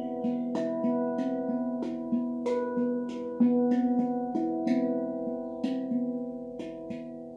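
Handpan played with the hands: a quick, steady run of struck steel notes, each ringing on and overlapping the next, with sharp finger strikes between them.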